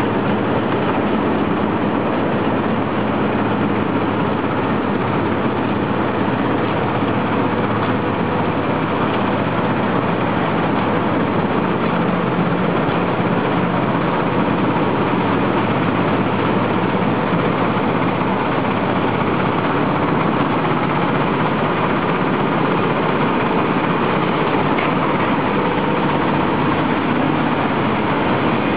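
Yada-II grain cleaning machine and its belt conveyors running steadily with grain pouring through, a dense, even machine noise with a faint steady hum.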